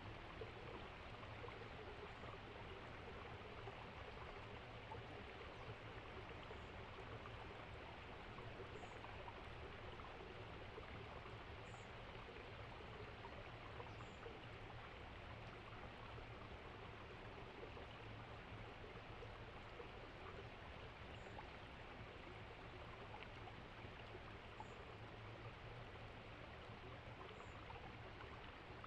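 Faint, steady rushing noise like a flowing stream, with a few faint short high peeps scattered through.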